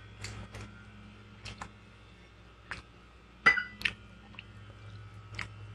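Chopsticks tapping and clinking against ceramic plates and bowls: a scattering of light clicks, with one louder ringing clink about three and a half seconds in. A low steady hum runs underneath.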